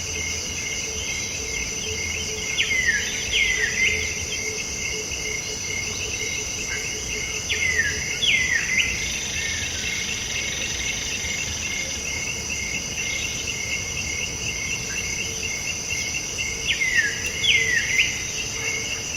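Kedasih (a Cacomantis cuckoo) calling: three times, a pair of short whistles each sliding down in pitch, over a steady pulsing insect trill.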